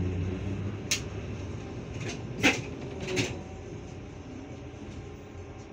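Inside a moving trolleybus: a low hum fades in the first half-second, then four sharp knocks, the loudest about halfway through, over steady cabin noise.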